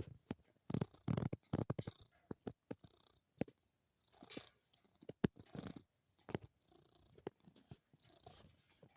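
Munchkin cat purring in uneven bursts, with short breathy sounds and scattered sharp clicks in between.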